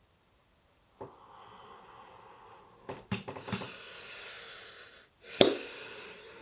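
A man's long, heavy breaths close to the microphone, with a few light clicks midway and one sharp click about five seconds in.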